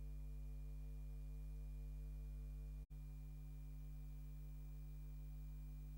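Steady low electrical hum with a faint buzz above it, dropping out completely for an instant about halfway through.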